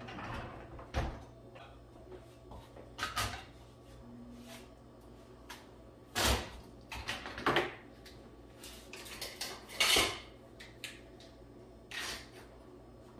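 Dishes and kitchenware clattering and knocking as a dishwasher is unloaded: separate clinks and knocks a second or two apart, the loudest about ten seconds in.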